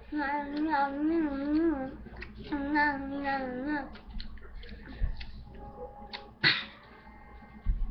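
A child's voice singing a wordless, wavering tune for about four seconds, then stopping. Scattered small clicks and knocks follow, one of them louder, about six and a half seconds in.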